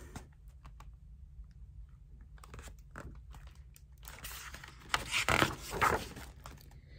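The paper page of a large hardcover picture book being handled and turned, a rustle with crinkling that is loudest about five to six seconds in, after a few faint clicks.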